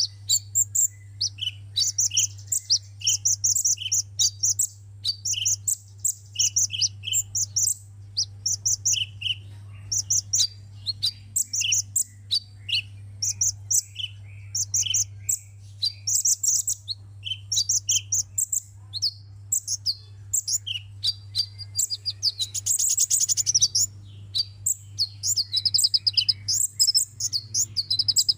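Sunbird singing: a fast, continuous run of high, sharp chirps and short trills, with a buzzier trill a little past two-thirds of the way through. A steady low hum runs underneath.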